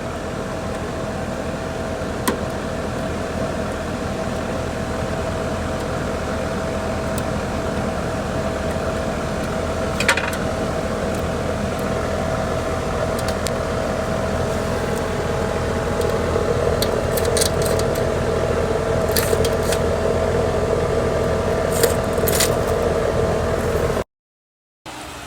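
Steady mechanical hum of running equipment with a constant tone, with a few light clicks and rattles of small parts and tools being handled; it cuts off abruptly near the end.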